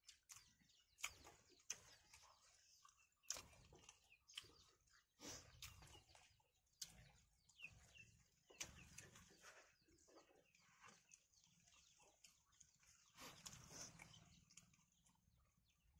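Quiet eating sounds of two people eating rice and buffalo meat curry by hand: irregular wet chewing and lip-smacking clicks.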